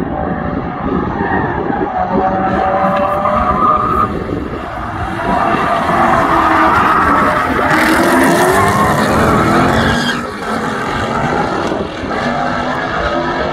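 Tuned V8 track cars at full throttle: a white S550 Mustang GT's 5.0 V8 with Borla exhaust rises in pitch and gets louder as it accelerates close past, with a rush of tyre noise, alongside a straight-piped E39 M5's V8 running with it.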